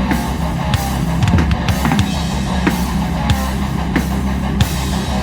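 Live hardcore punk band playing an instrumental passage: a drum kit hitting a cymbal crash about every two-thirds of a second over dense, steady guitar.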